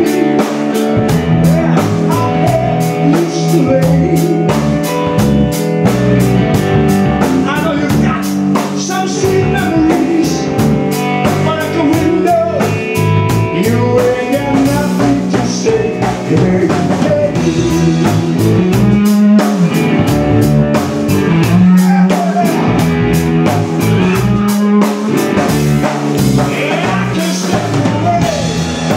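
Live band playing a blues-rock song: electric bass, electric guitar and drum kit, with a male vocalist singing into a microphone over them.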